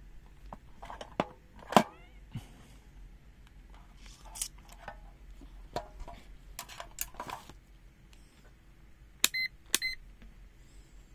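Scattered clicks and taps from handling a LOMVUM DM616 digital multimeter and its test leads. About nine seconds in come two short high beeps, half a second apart, from the meter as its rotary dial is switched to a new function.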